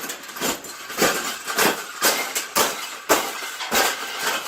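Repeated metallic clinks and clanks, about two a second and unevenly spaced, as a wire cage is bent and folded by hand.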